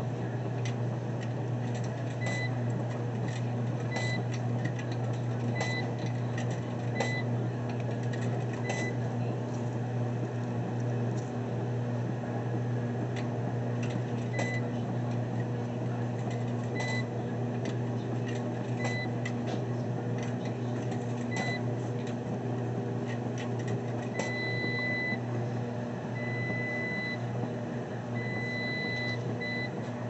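Laundromat washing machine beeping as its panel is worked by hand: short single beeps with clicks every second or two, then a run of longer beeps in the last few seconds. A steady low electrical hum runs underneath.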